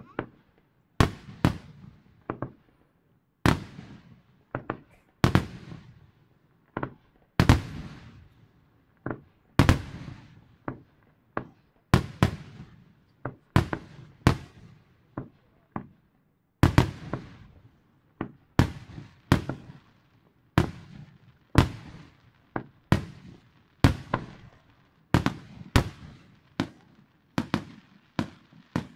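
Aerial firework shells bursting in quick succession, a loud bang every second or so, each trailing off in echo.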